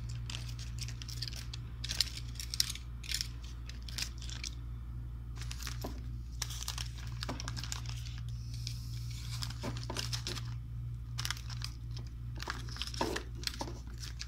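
Foil-lined anti-static plastic pouch being torn open by hand: repeated crinkling and tearing rustles, over a steady low hum.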